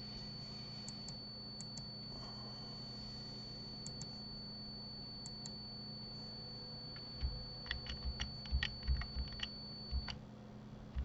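Computer mouse clicks, mostly in quick pairs, then a quick run of louder keyboard key presses about two-thirds of the way in. Under them run a faint steady high-pitched whine, which cuts off near the end, and a low hum.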